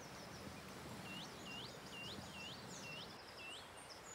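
A bird singing a run of six quick upswept whistled notes, about two and a half a second, starting about a second in, with fainter high twittering, over quiet outdoor ambience.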